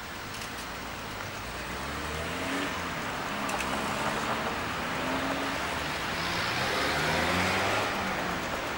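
Melbourne W-class tram rolling past amid street traffic: a steady rumble and hiss that grows louder toward the end as a car passes close by.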